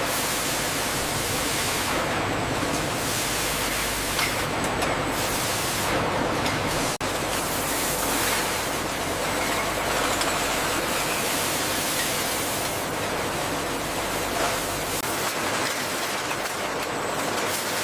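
Steady, dense rumbling noise of factory machinery, with a brief break about seven seconds in.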